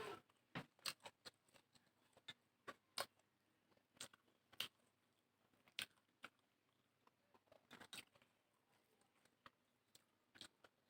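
Close-up eating sounds: soft chewing and wet mouth clicks and smacks of someone eating rice with curry, coming irregularly every half second or so.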